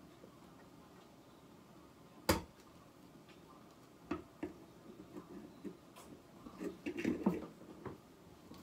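Small clicks and handling noises of a hand wire stripper working on a short electrical wire, with one sharp click about two seconds in and a busier run of clicks and rustling near the end.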